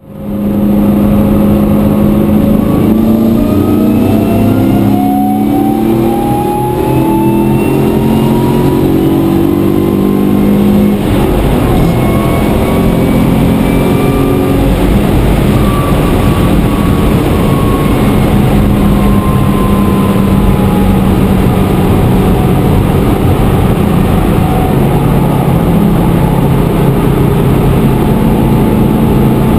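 BMW E28 with a swapped-in S62 4.9-litre V8, heard from inside the cabin. The engine climbs steadily in pitch as the car accelerates for about the first ten seconds, then settles into a steady drone at motorway cruising speed, over constant road noise.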